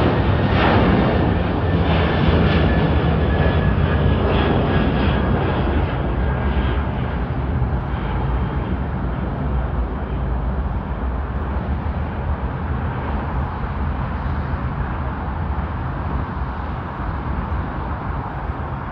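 Boeing 747-400's four jet engines running loud. There is a whine that sinks slightly in pitch over the first several seconds, then a deep rumble slowly fades away.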